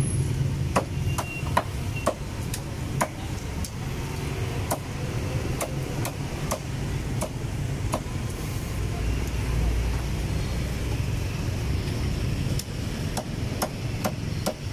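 Cleaver chopping a roast Peking duck on a wooden chopping block: sharp, irregular chops, a pause, then several quicker chops near the end, over a steady low rumble of street traffic.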